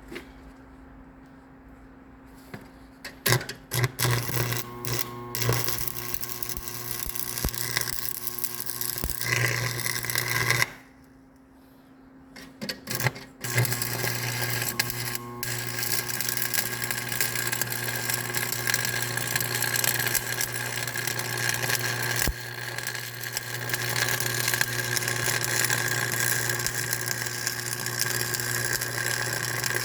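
A motor-driven machine running with a steady hum and mechanical noise. It starts about three seconds in, stops abruptly after about ten seconds, restarts with a few jolts a couple of seconds later and then runs steadily.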